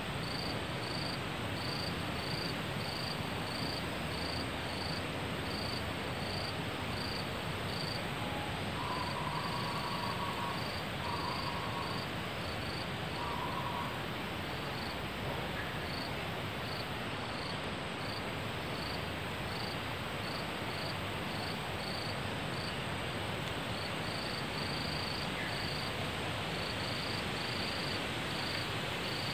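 Forest insect chorus: a dense, steady hiss of insects, with a high cricket-like chirp pulsing about once a second over a thin, constant high whine. About a third of the way in, three short mid-pitched calls from another animal.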